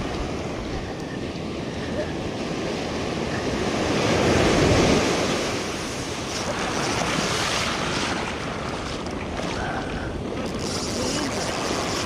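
Ocean surf washing onto the shore, with one wave swelling and breaking about four to five seconds in, and wind on the microphone.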